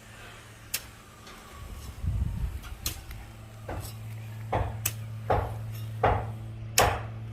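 Hammer blows, sharp knocks that come about every three-quarters of a second from about halfway in, over a low steady hum.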